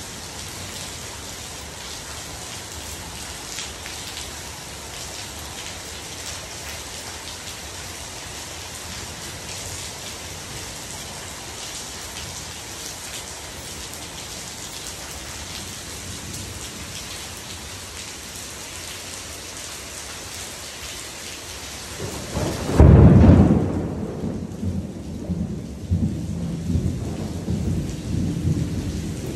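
Heavy rain falling steadily on a screened pool enclosure and pool. About three-quarters of the way through, a loud clap of thunder breaks and rumbles on to the end, the hiss of rain dropping away beneath it.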